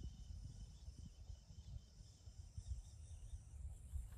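Faint, steady chirring of crickets or other insects, fading near the end, over a low rumble on the microphone.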